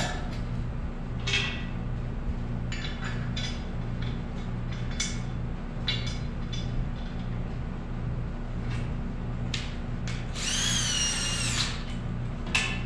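A power drill runs once for about a second near the end, its whine climbing quickly and then holding. Before it come scattered clinks and rattles of metal hardware and tools being handled, over a steady low hum.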